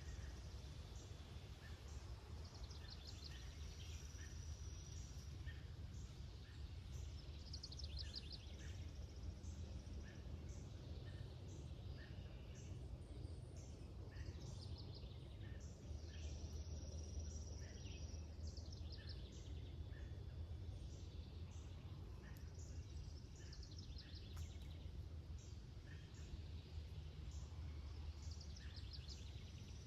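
Several birds singing and calling, with one rapid, slightly falling trill repeating about every five seconds, over a steady low rumble.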